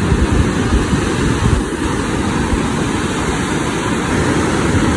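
Surf breaking and washing up the beach as a steady loud rush, with wind buffeting the microphone in low, irregular thumps.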